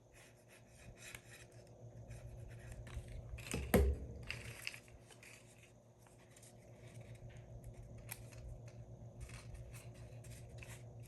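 Paper pages rustling, scratching and rubbing as folded mini-book pages are glued and pressed closed, with a sharp knock about four seconds in.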